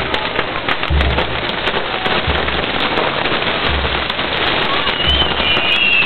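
Fireworks crackling and fizzing without a break, with many sharp pops. Under it runs a low thud about every second and a half, and a high whistle rises about five seconds in.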